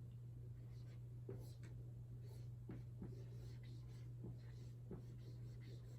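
Faint scratching and tapping of a pen or marker writing out a word, a stroke every half second or so, over a steady low hum.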